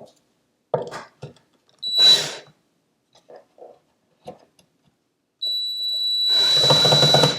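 Cordless drill/driver backing out cabinet hinge screws, its motor whining in a short burst about two seconds in and again in a longer run near the end, with a few small knocks and clicks of the door and hinge between.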